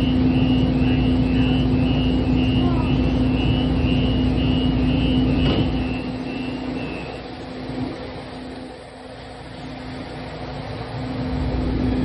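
Siemens S200 light rail train running, heard from on board: a steady hum over a rumble that quietens for a few seconds past the middle and picks up again near the end. Over the first half a high beep repeats about twice a second, fading out.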